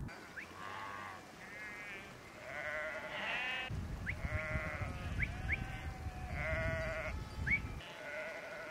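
A mixed flock of sheep and goats bleating, many calls overlapping one after another. A few short rising squeaks come in between the calls.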